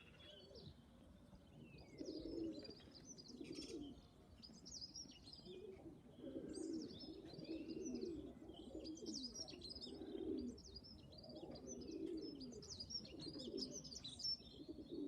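Domestic pigeons cooing in repeated low bouts, with small birds chirping in quick high notes over them.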